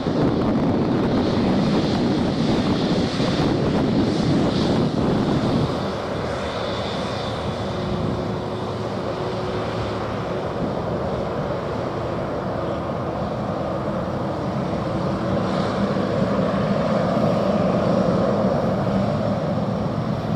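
Boeing 777-300ER's GE90 turbofan engines running at taxi power as the airliner taxis past: a steady rumble with a faint whine, easing slightly about six seconds in and swelling again near the end.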